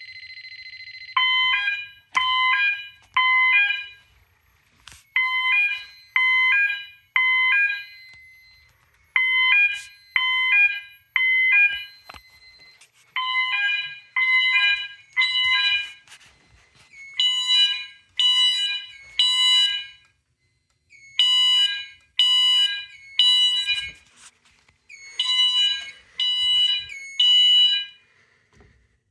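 Fire alarm horns sounding in temporal-3 code, the standard evacuation signal, set off by a fire drill: groups of three beeps, each group followed by a pause, repeating about every four seconds. A steady tone sounds for about a second before the pattern starts.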